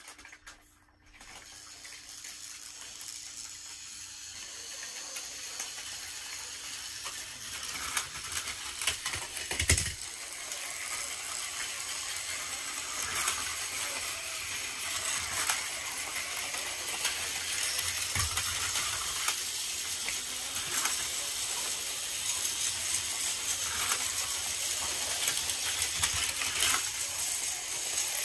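Several battery-powered Plarail toy trains running together on plastic track: small motors whirring and wheels and plastic cars rattling and clicking over the track. The noise builds up over the first several seconds, with one sharp knock about ten seconds in.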